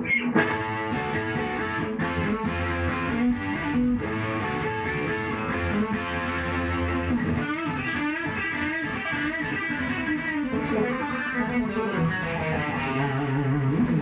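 Electric guitar, a counterfeit 'Chibson' Les Paul Custom copy with three pickups, played through a Marshall JCM 800 combo amp in a tone demo. It is a steady stream of picked notes, with a few held low notes among them.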